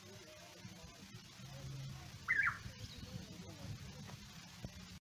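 An African grey parrot gives one short two-note squawk, rising and falling, about two seconds in. Otherwise only a faint low rumble.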